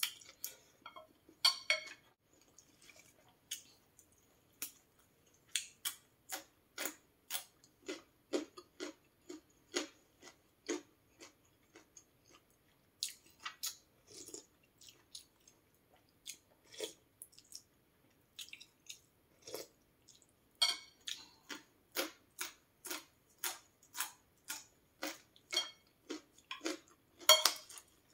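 Close-miked chewing of noodle soup with meatballs: wet mouth smacks at about two a second, pausing now and then, with a few louder sharp sounds, about two seconds in, around twenty seconds and near the end.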